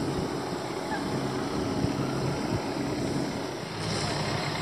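An engine running steadily at low speed over a continuous rushing noise.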